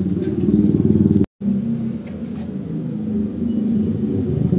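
A motorcycle engine running steadily, a low pulsing drone; the sound cuts out for an instant about a second in.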